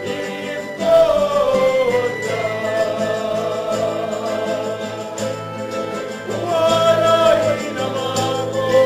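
A Christian hymn in Maltese: voices singing long held notes over instrumental accompaniment. The music swells about a second in.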